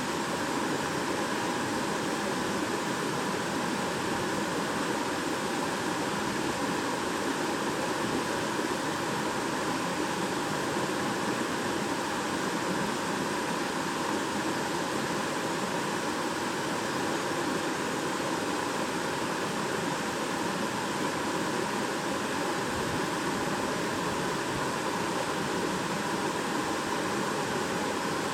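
Shallow stream babbling over stones, a steady rush of water without breaks.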